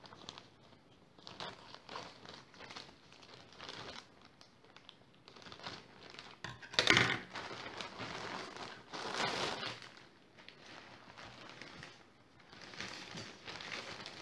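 Plastic courier mailer bag rustling and crinkling as it is cut open with scissors and handled, in irregular bursts, loudest about halfway through.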